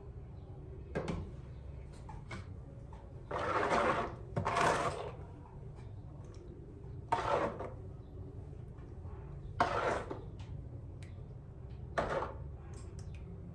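A ladle scooping liquid homemade soap batter from a plastic bowl and pouring it into small plastic soap molds: five short scooping and pouring noises a couple of seconds apart, the two longest close together about three to five seconds in, with light clicks and knocks between.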